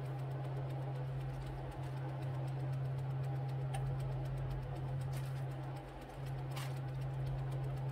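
Steady low mechanical hum, with a few light clicks over it.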